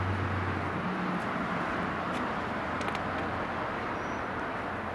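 Steady outdoor background noise like distant road traffic. A low hum stops about a second in, and there are a few faint clicks near the middle.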